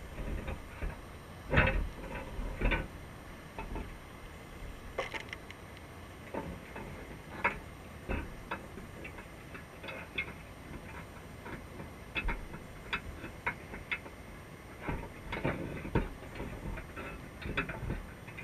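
Underwater, a Dungeness crab's legs and claws click and tap irregularly on a wire crab trap as it moves about inside, heard through a GoPro housing fixed to the trap. The clicks come singly at first and in quicker clusters near the end.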